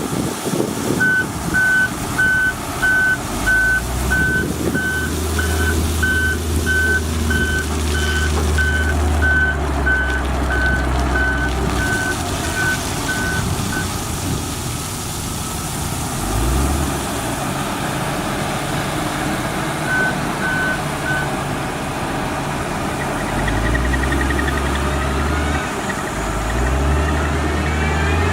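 Reversing alarm on a heavy construction vehicle beeping steadily, about three beeps every two seconds, for roughly the first half, then a short run of beeps again past the middle. Underneath, a heavy machine's engine runs continuously, its pitch shifting and rising near the end.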